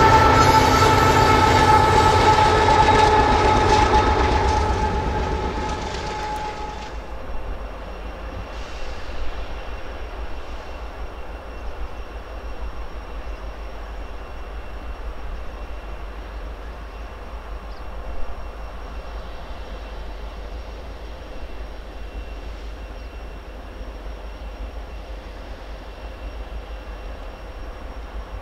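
Freight train horn sounding a held chord that stops about seven seconds in, over the low rumble of the train. Then the train keeps rolling by with a steady low rumble of wheels on rail.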